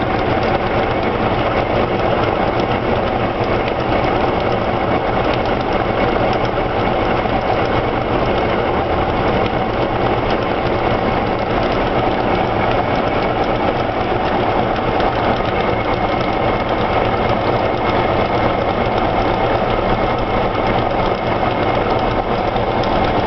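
Atlas washing machine spinning its drum at steady speed in the spin cycle after the second rinse, a loud even mechanical hum with a faint steady whine.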